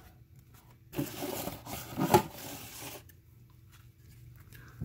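A stack of Upper Deck baseball cards rubbing and sliding against each other as the handful is squared up in the hands. The dry rustle lasts about two seconds, with a sharper scrape in the middle.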